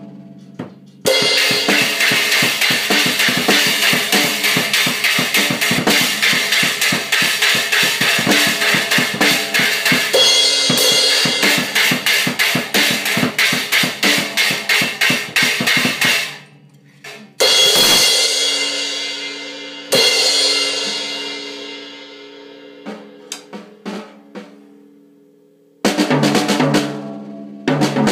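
Drum kit played in a fast, continuous beat of snare, bass drum and cymbals for about fifteen seconds. Then it breaks off into two cymbal crashes left to ring out, a few scattered strokes, and the beat starts again near the end.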